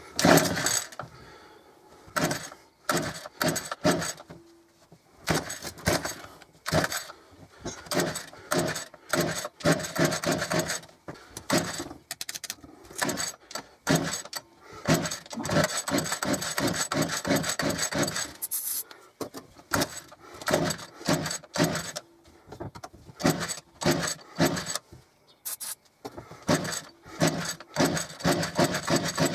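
Sabre two-stroke hedge trimmer being pull-started again and again with the choke on: the recoil starter rattles and whirs in repeated short bursts as the engine turns over without catching. It won't start after a carburettor rebuild, which the owner puts down either to a fault in his reassembly or to old fuel.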